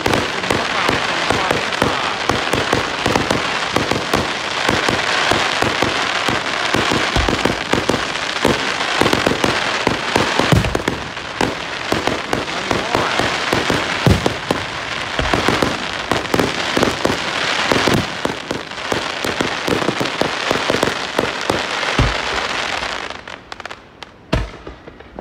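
Aerial fireworks going off: a dense, unbroken run of crackles and pops with separate louder bangs every few seconds, thinning out and dying away near the end.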